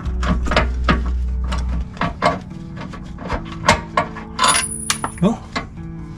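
Metal tools and parts clinking and knocking: a series of irregularly spaced sharp clicks over a steady low hum.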